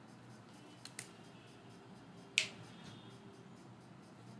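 Two short, sharp clicks over quiet room tone: a faint one about a second in and a louder one about two and a half seconds in.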